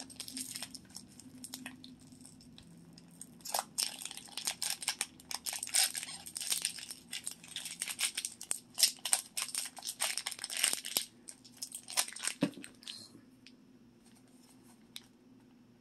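Crinkly foil pouch being pulled and squeezed out of a hollow plastic toy dinosaur. Several seconds of dense crackling and rustling build a few seconds in, then die down to light handling near the end.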